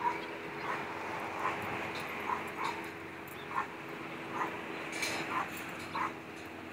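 Miniature Pinscher–Jack Russell mix dog making a quick series of short sounds, about a dozen, roughly one every half second, with its nose in the grass. A faint steady hum lies underneath.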